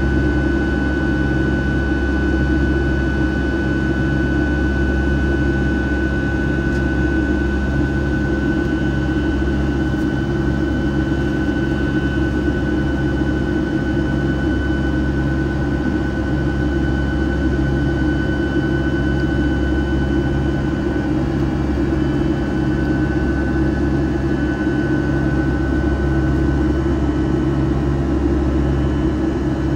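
Rolls-Royce RB211-535E4B turbofan engines of a Boeing 757-200 in flight, heard from inside the cabin beside the engine: a steady deep rumble with a steady high whine over it.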